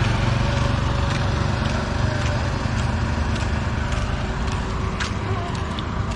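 Steady road traffic noise with the small engine of a three-wheeled auto-rickshaw running as it drives away ahead, slowly getting quieter. Faint light clicks about once a second.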